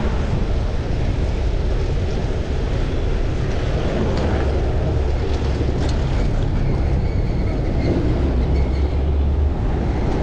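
Steady, loud rumble of wind and road noise picked up by a chest-mounted action camera while riding a fixed-gear bicycle, with a brief click about six seconds in.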